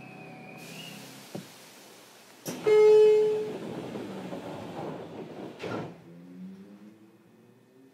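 JR Kyushu 303 series electric train setting off. The door-warning chime ends, a loud steady horn-like tone sounds for about a second three seconds in, and the sliding doors shut with a thump near six seconds in. The traction motor drive then starts a rising, stepped whine as the train begins to move.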